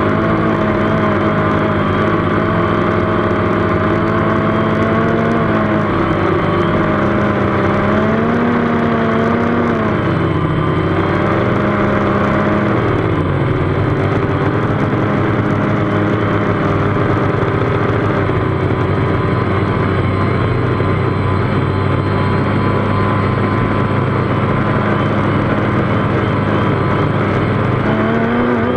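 DJI Phantom quadcopter's four electric motors and propellers whirring steadily, heard up close from a GoPro mounted on the drone. The pitch rises and falls briefly about a third of the way in and again near the end as the motors change speed.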